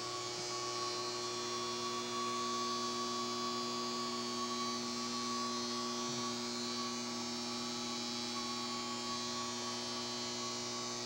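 Steady electrical hum from power equipment, several even tones held without change over a light hiss.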